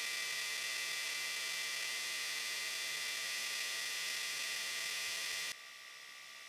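A workshop machine's electric motor running with a steady hum and hiss, no change in load, dropping abruptly to a much fainter hiss about five and a half seconds in.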